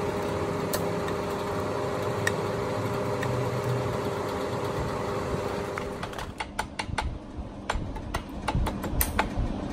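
A steady machine hum with a constant tone that stops about six seconds in, followed by a run of light, sharp metal clicks as a U-joint retaining clip is worked into its groove in a driveshaft yoke with needle-nose pliers.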